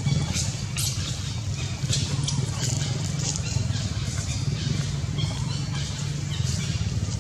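Outdoor background sound: a steady low hum with scattered short, high ticks.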